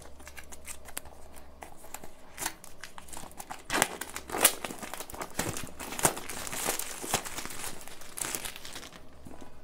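Clear plastic shrink wrap being peeled off a small cardboard box and crumpled in the hands: a run of crinkling and crackling, busiest in the middle and dying down near the end.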